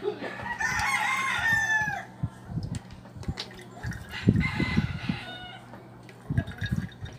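A rooster crowing twice: a long crow about half a second in and a shorter one about four seconds in. Soft knocks from hands squeezing calamansi over a mesh strainer run in between.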